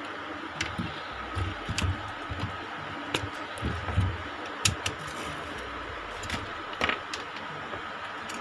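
Scattered clicks and light knocks as a laptop motherboard and chassis are handled and set down, over a steady hiss.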